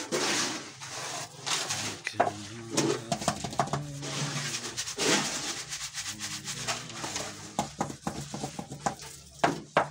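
Wet concrete being scraped and scooped by hand from a mixer and worked into paver-tile moulds: a rough, gritty scraping and rubbing, with sharper knocks toward the end.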